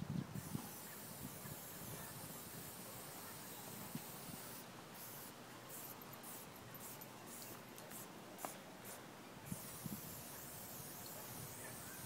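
Aerosol spray paint can hissing as paint is sprayed onto a wall, in long bursts broken by a few short pauses midway.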